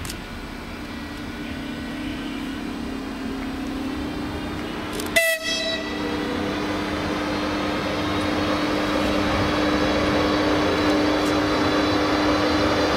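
Electric locomotive pulling a passenger train away from a station, its traction motors humming in steady tones and growing louder as it nears and passes. A short horn blast sounds about five seconds in.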